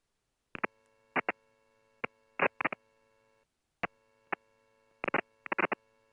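Cockpit radio/intercom audio with short bursts and clicks, about a dozen in a few seconds, each carrying the same steady electrical buzz, with near silence between them.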